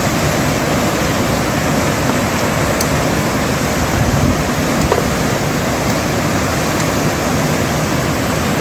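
Steady rushing of whitewater rapids on a fast, turbulent mountain river.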